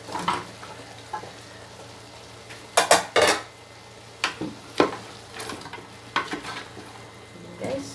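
Wooden spatula pushing cut carrots, potatoes and chicken around a large aluminium cooking pot, the vegetables tumbling in and the spatula knocking against the pot's side several times, loudest in a quick cluster about three seconds in.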